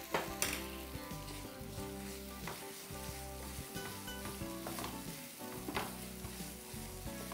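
A wooden spatula stirring and scraping a thick onion paste with mint leaves in a non-stick frying pan. A soft sizzle of frying runs under it, with a few light knocks of the spatula against the pan.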